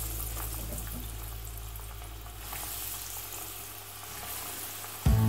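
Breadcrumb-coated potato cheese balls frying in hot vegetable oil in a stainless steel pan: a steady sizzle of bubbling oil. Music comes in loudly just before the end.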